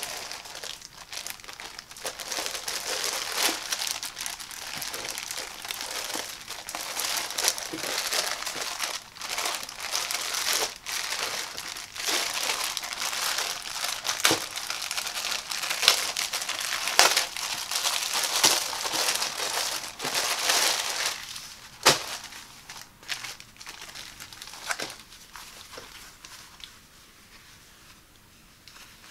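Thin clear plastic bag crinkling and crackling as hands squeeze and open it, with several sharp snaps of the plastic. Over the last several seconds it turns to quieter, softer rustling as the cotton kitchen towels are lifted out and handled.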